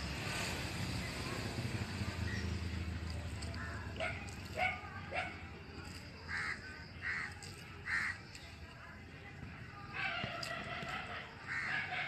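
Crows cawing: a run of short, separate calls begins about four seconds in, and another cluster comes near the end.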